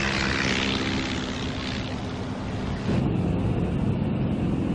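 Propeller aircraft engine running steadily, with a rush of air over the first two seconds and the engine growing louder about three seconds in.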